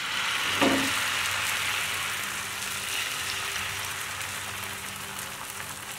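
Thin egg batter sizzling as it is poured into a hot, lightly oiled nonstick pan, a steady hiss that slowly fades, with a light knock about half a second in.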